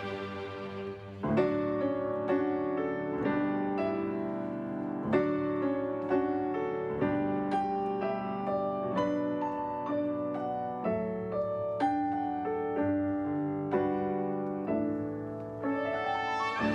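Solo piano playing a melody of separately struck notes, after the orchestra's sustained tones die away about a second in. The orchestra swells back in near the end.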